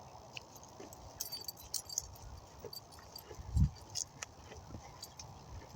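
Light metallic jingling and scattered clicks from the dogs' collar tags and leash hardware on a walk, with a soft low thump about three and a half seconds in.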